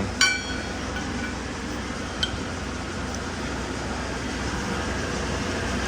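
Old lathe turning very slowly on a VFD, giving a steady low hum. A metal clink rings out just after the start, and a small tick comes about two seconds in.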